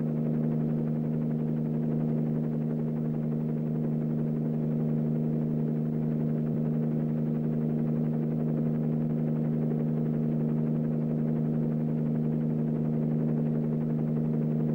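Background music: a steady synthesizer drone holding two low notes unchanged.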